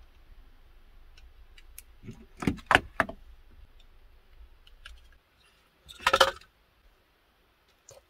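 Clicks and light rattling from hands handling and joining red electrical wires and their connectors, with a few sharp clicks between about two and three seconds in and a short dense cluster about six seconds in.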